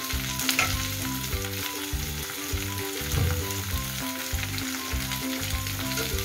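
Raw prawns sizzling in hot oil with fried onions and green chillies in a kadai, a steady frying hiss.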